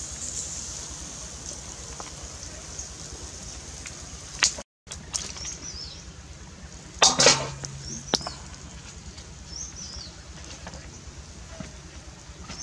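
Open-air ambience around ribs grilling over embers: a steady low background with small birds chirping several times. A brief loud sound with a low hum comes about seven seconds in, and the sound drops out briefly a little over four seconds in.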